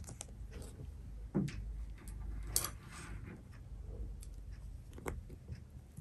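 A few faint, scattered clicks and scrapes: the bamboo handle of a brush prying at the lid of a small plastic glue container to get it open.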